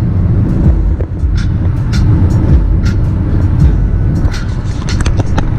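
Car driving on a highway, heard from inside the cabin: a steady low rumble of engine and road noise, with scattered light clicks.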